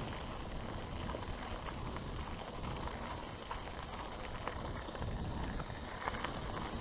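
Mountain bike rolling fast down a dirt and gravel trail: tyres crunching over the loose surface and the bike chattering and rattling over bumps, with a steady rumble of wind on the camera's microphone.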